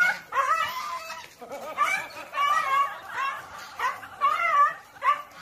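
A goose honking over and over, about ten calls whose pitch wobbles up and down, as it spreads its wings and faces off against a dog.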